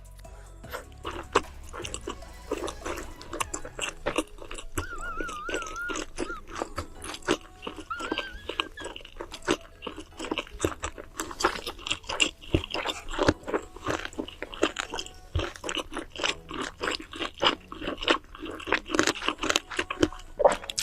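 Close-miked eating: crunchy food being bitten and chewed, with dense, irregular crunches throughout. A short, high wavering tone comes about five seconds in and again briefly near eight seconds.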